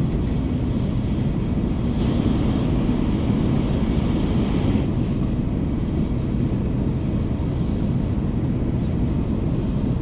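Shinkansen train running at speed, heard inside the passenger cabin: a steady low rumble with a faint rushing hiss that swells a little a few seconds in.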